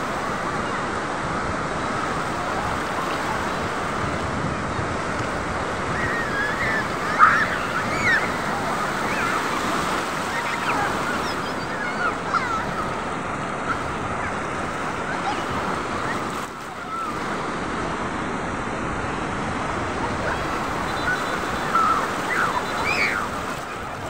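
Sea surf washing in over sand and rocks in a steady rushing wash. A few faint, short high-pitched calls sound over it about a quarter of the way in and again near the end.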